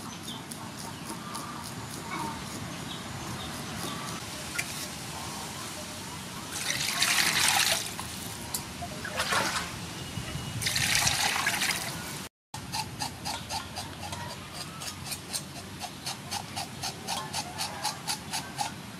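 Water sloshing and splashing in a metal basin as fish are washed, in two loud bursts about six and ten seconds in. Then a kitchen knife scraping scales off a fish in quick, regular strokes, about two or three a second.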